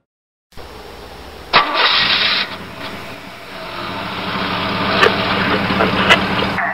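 Vehicle engine starting: a sharp click and a short loud burst about one and a half seconds in, then a steady idle that grows gradually louder, with a couple of sharp clicks.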